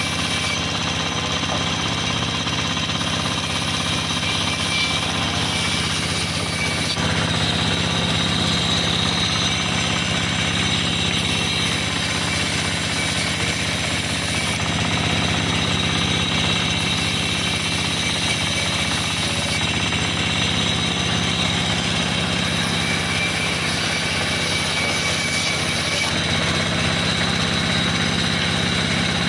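The engine-driven band saw of a small sawmill running steadily, a continuous low mechanical drone with a rapid beat.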